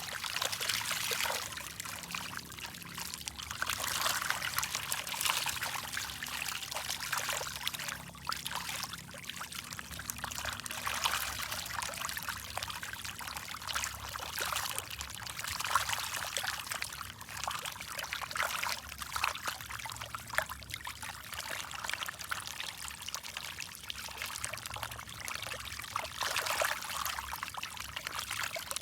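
Water trickling and splashing in a continuous, uneven rush that swells and dips every few seconds.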